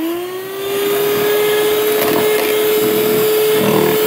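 Electric stand mixer running, its beaters whisking egg-and-sugar cake batter in the bowl. The motor's whine rises in pitch as it gets up to speed, then holds steady.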